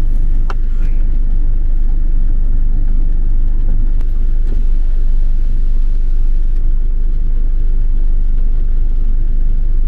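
Steady low rumble of a car idling, heard from inside the cabin.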